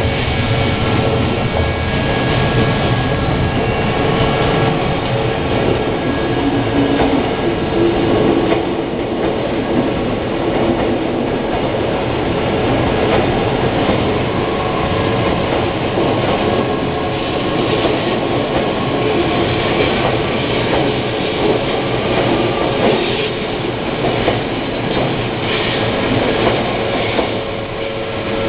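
Odakyu Line electric train passing the level crossing at close range: a loud, steady rumble of wheels on rails with a few steady tones running through it and occasional clatter over the rail joints.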